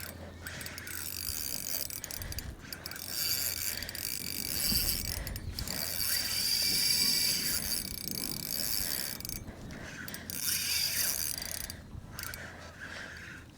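Fishing reel clicking and buzzing in long runs, broken by a few short pauses.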